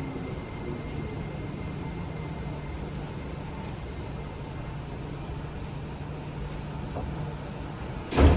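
Seibu 20000 series electric train car, heard from inside, standing with a steady low hum after the last falling note of its Hitachi IGBT-VVVF inverter fades in the first moment. Just over eight seconds in, a sudden loud noise breaks in and continues: the doors opening.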